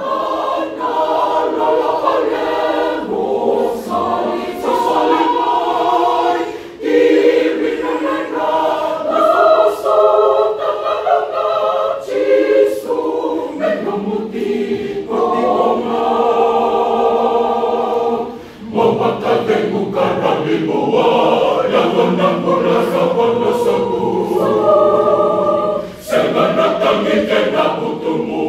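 A large mixed choir of men's and women's voices singing a hymn in harmony, with short breaks between phrases. The low men's parts come in more strongly about two-thirds of the way through.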